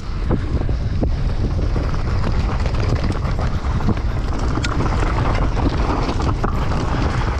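Wind buffeting the microphone of a mountain bike descending a dirt and stony trail, a steady low rumble with many scattered clicks and rattles from the tyres and bike on the rough ground.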